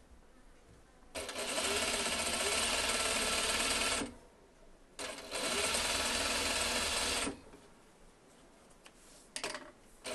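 Juki sewing machine stitching a seam through patchwork cotton in two runs of about three and two seconds, with a short stop between them. A few light clicks come near the end.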